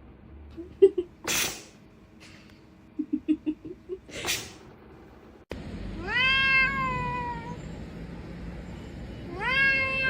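Domestic cat meowing twice: two long, drawn-out meows, the first about half a second after a sudden cut. Before the cut there are a few short soft low sounds and two brief breathy noise bursts.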